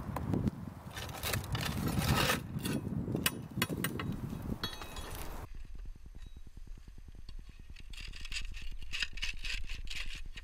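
Concrete roof tiles scraping and clacking against each other as they are levered and pulled down into place with a metal flat bar: a run of sharp knocks and scrapes, quieter for a few seconds in the middle, with more scrapes near the end.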